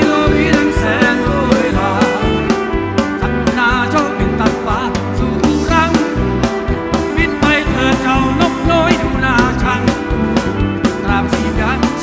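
Live rock band playing loudly through a large PA: steady drums and bass under a lead line of bending, wavering notes, with a large outdoor crowd audible behind it.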